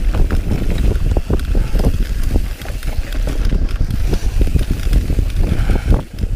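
Mountain bike descending a rough dirt singletrack: heavy wind buffeting on the microphone, with a constant clatter of quick knocks and rattles from the bike over the bumps.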